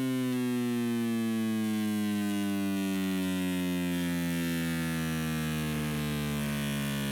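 Synthesized electronic drone: a stack of steady tones sliding slowly downward in pitch, over a constant hiss of noise.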